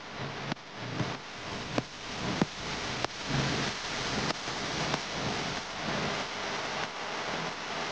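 Gritty crunching and squishing of damp red soil being kneaded and pressed by fingers, with scattered sharp clicks of grains against a constant noisy hiss.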